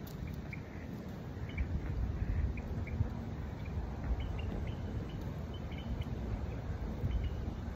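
Wind noise on the microphone, a steady low rumble, with scattered short, high chirps from small birds.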